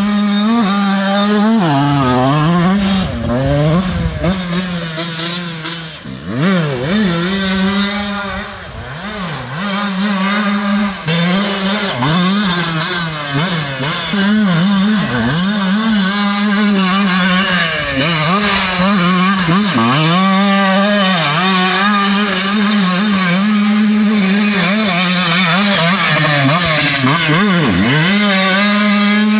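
Small dirt bike engine revving up and down again and again as it rides a track, its pitch rising and falling with the throttle. The sound dips briefly a few seconds in.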